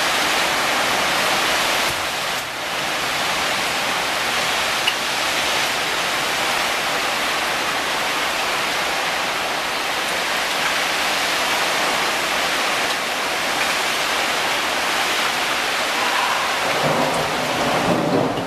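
Heavy thunderstorm rain pouring steadily, an even hiss.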